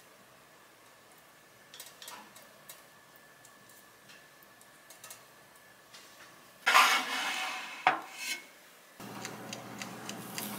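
A few light taps of skewers on a metal wire rack, then a loud metallic scrape and clatter about seven seconds in as the rack is slid into a small oven, with a couple of knocks after. From about nine seconds the oven runs with a steady hum.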